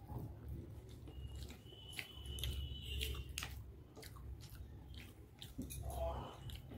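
A person chewing and slurping soft hakka noodles close to the microphone, with light clicks and scrapes of a plastic spoon against a ceramic plate.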